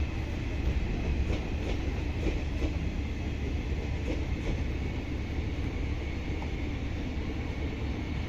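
Passenger coaches of the 14315 Bareilly–New Delhi Intercity Express rolling past on the track: a steady low rumble with wheels clicking over rail joints, the clicks growing fainter in the second half.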